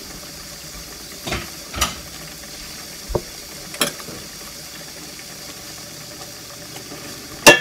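A metal spoon clinking and tapping several times against a glass dish and a stainless pot while frozen saluyot is scooped out, over a steady low hiss of cooking. The loudest clink comes near the end.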